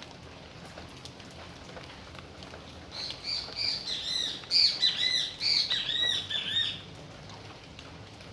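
Steady rain falling. About three seconds in, a bird calls over it with a rapid run of repeated high chirps lasting nearly four seconds.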